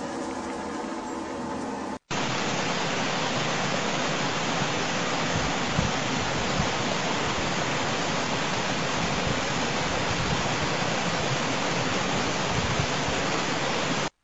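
Steady rushing of stream water pouring over rocks down into a sinkhole that has opened in the streambed. It starts abruptly about two seconds in, after a fainter hiss with a low hum.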